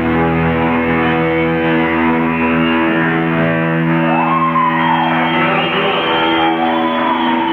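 Distorted electric guitar holding a ringing chord over a deep bass note, which drops out about three seconds in. Then guitar notes slide up and fall away, twice.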